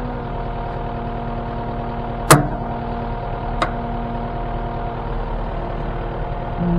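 Diesel engine and hydraulics of a CAT 289D3 compact track loader running steadily under a Gyrotrac 500HF forestry mulcher head. A sharp knock comes about two seconds in, and a fainter one about a second later.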